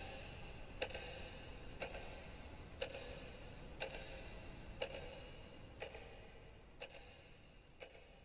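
A clock ticking steadily, one tick a second, over a low hiss; the ticks and hiss fade gradually toward the end.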